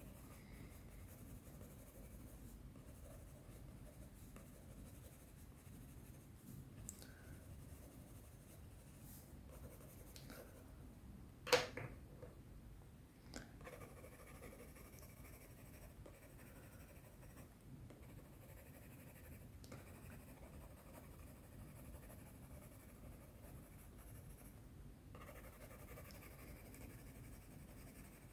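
Faint scratching of colored pencil strokes on sketchbook paper. One sharp click about halfway through.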